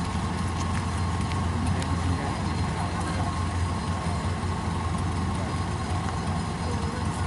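Kubota DC-93 combine harvester's diesel engine running steadily while harvesting, a constant low hum with a thin steady whine above it.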